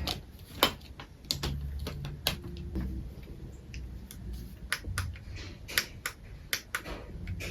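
Scattered light clicks and taps at an irregular pace, like small objects or tools being handled and set down, over a faint low hum.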